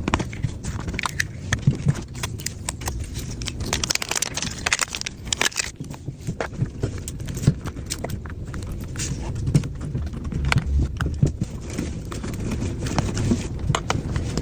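Irregular small clicks, taps and scrapes of hard objects being handled, over a steady low rumble.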